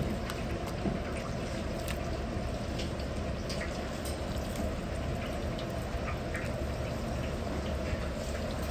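Hot oil in a wok sizzling and crackling steadily as egg-and-starch-coated chicken deep-fries, with scattered small pops over a steady low roar from the kitchen range.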